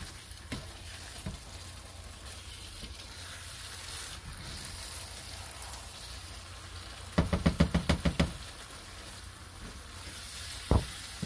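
Thick ground-beef filling simmering quietly in a nonstick frying pan while a spatula stirs it. About seven seconds in, the spatula knocks quickly against the pan about nine times over a second, and it knocks once more near the end.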